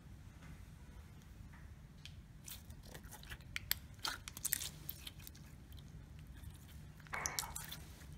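Faint soft clicks and crackles of clear green putty being squeezed, stretched and folded by hand. The clicks come scattered, thickest in the middle and again near the end.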